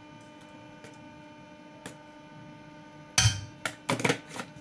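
Faint steady hum, then about three seconds in a sharp knock followed by a few quick clicks and taps as glass spice jars with plastic caps and a spoon are handled.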